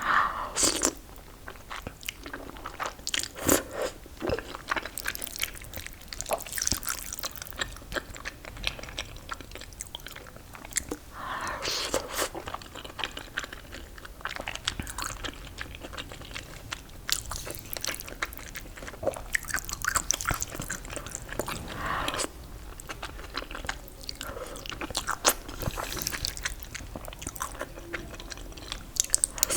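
Close-miked eating: repeated crunchy bites and chewing of crisp fried food.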